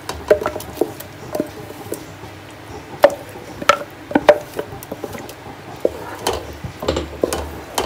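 Wooden spoon scraping thick ground-spice paste out of a grinder jar, with irregular knocks and taps, some briefly ringing, and wet squishes as the paste drops into the gravy.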